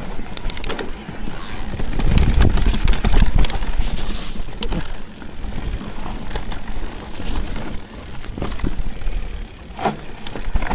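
Mountain bike ridden down a rough technical trail: a heavy low rumble of wind and tyres on the mic, with the bike clattering and rattling over bumps, loudest about two seconds in.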